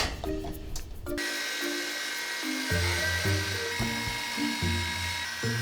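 Background music: a light tune of short, repeated notes over a bass line, with a steady hiss and faint high tones beneath it. In the first second there are a few short, sharp scraping noises.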